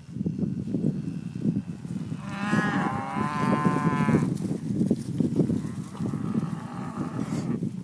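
Holstein-Friesian dairy cows mooing as the herd moves: one long, loud moo about two seconds in and a fainter one near the end, over steady low thudding of hooves and rustling in the grass.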